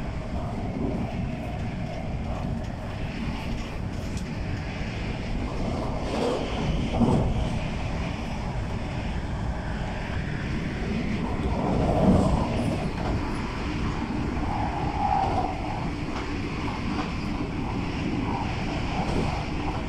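Running noise inside an MTR Tung Chung Line K-Train carriage in motion: a steady rumble of wheels on rail, swelling briefly about seven and twelve seconds in.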